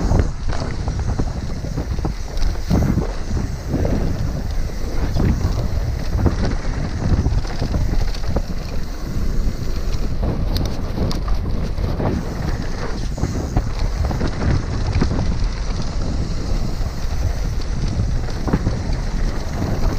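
Heavy wind rushing over the microphone of a camera riding on a mountain bike descending a dirt trail at speed, with tyres on loose dirt and frequent short knocks and rattles from the bike over bumps.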